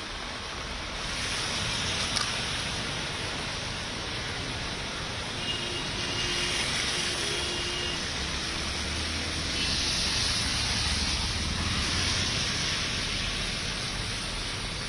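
Rain and traffic on a waterlogged road: a steady hiss of falling rain and tyres splashing through standing water, swelling louder twice as vehicles pass.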